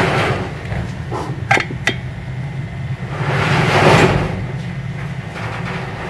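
Two sharp clicks about a second and a half in, as a ferrite magnet segment is handled and pressed against the fan rotor's metal ring, then a brief scraping rustle around four seconds in, over a steady low hum.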